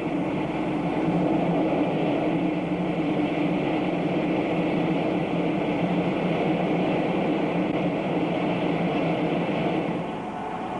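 Ring of gas burners flaming around a steel locomotive driver tire, a steady rushing noise, heating the tire so it expands for shrink-fitting onto the wheel center. The noise drops a little near the end.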